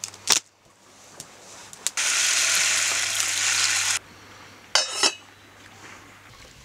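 Dry couscous poured from its bag into a pot of water, a steady hiss lasting about two seconds that stops abruptly. About a second later the stainless steel lid of the Primus pot clatters onto it with a short metallic ring.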